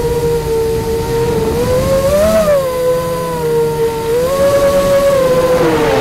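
FPV quadcopter's electric motors and propellers whining, heard from the drone's own onboard camera. The pitch bends up and back down about two seconds in, steps up about four seconds in, and sags near the end as the throttle changes.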